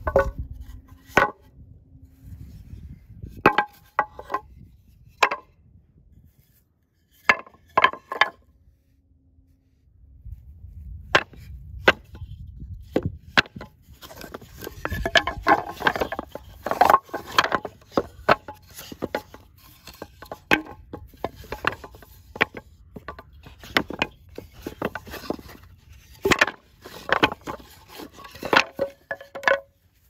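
2x4 lumber boards being set down and stacked on one another, wood knocking against wood with a short hollow ring. A few separate knocks at first, then a dense, irregular clatter of boards from about a third of the way in.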